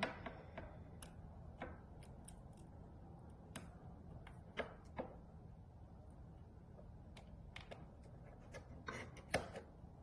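Scattered faint clicks and taps, about eight of them with the loudest near the end, from a phone screen assembly's flex connector being handled and pressed onto a screen tester's flex cable.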